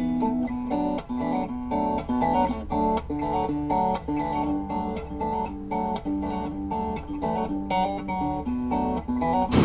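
Background music: acoustic guitar picking quick, steady runs of notes.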